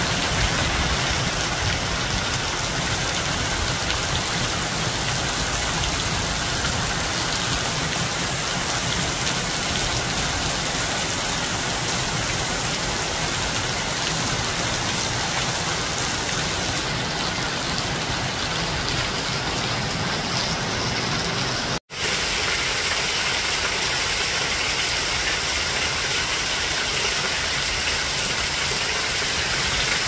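Steady rain falling on garden foliage, an even hiss without letup. It cuts out for an instant about two-thirds of the way through, then carries on.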